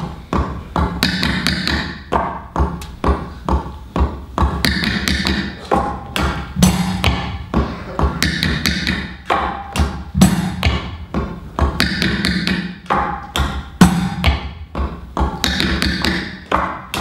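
Tap shoes striking the stage floor in a fast, steady percussive rhythm, taps and heavier stamps packed closely together, picked up by floor microphones, with music.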